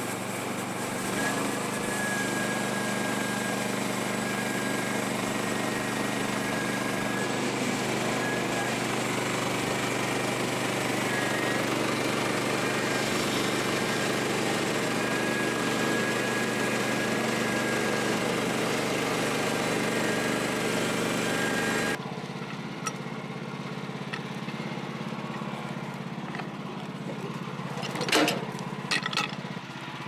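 Woodland Mills HM126 portable band sawmill cutting through a log: its small gas engine running steadily under load, with the hiss of the band blade in the wood. About two-thirds of the way through, the cutting noise stops suddenly and the engine carries on more quietly, with a few sharp knocks near the end.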